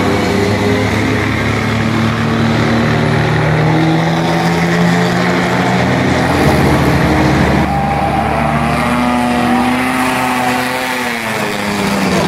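Engines of pre-war sports racing cars running hard through a corner, several at once at first, their notes rising and falling as they accelerate and pass. Near the end one car's note drops away as it goes by.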